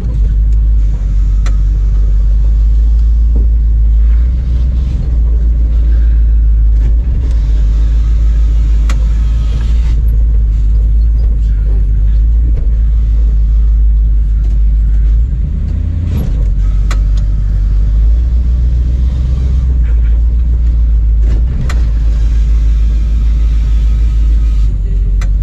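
Off-road tow truck running as it crawls along a rough, tight trail, a loud steady low rumble, with a few short knocks as it goes.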